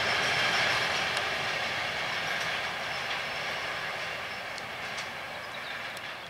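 Container freight train rolling past on the rails, its wagon and wheel noise a steady hiss-like clatter that fades gradually as the train moves away.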